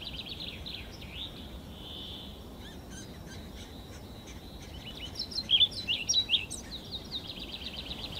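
Small songbirds singing: a fast high trill near the start and again near the end, with louder chirps about five to six and a half seconds in.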